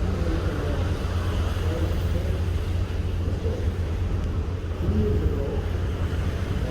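Steady low rumble of ambient noise on board a ship at sea, with faint voices in the background.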